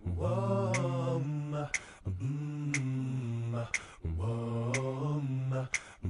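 The programme's closing theme song: voices singing a repeated phrase about every two seconds, with low held notes and a sharp tick about once a second.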